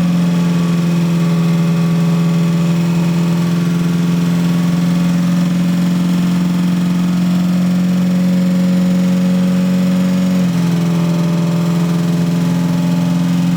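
Freshly rebuilt Mazda Miata four-cylinder engine running steadily just after its first start, with a small shift in engine speed about ten seconds in.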